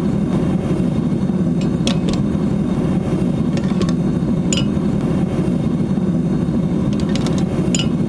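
Propane burner of a ToAuto TSF6000 metal melting furnace running steadily, an even low rush of burning gas as it dries and preheats the crucible. A few light clicks sound over it.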